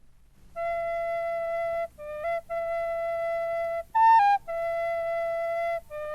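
Solo recorder playing a slow melody of long held notes, with short turns between them and a higher note about four seconds in.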